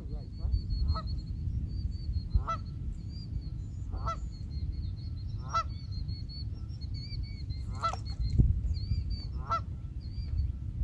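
A bird honking: about six short, harsh calls, roughly one every second and a half. Under them run a thin, steady, high chirring and a low rumble.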